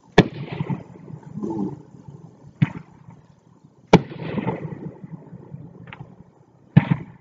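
Raging Zombies consumer fireworks cake firing from the ground: four sharp bangs spaced one and a half to three seconds apart, each trailing off as it fades.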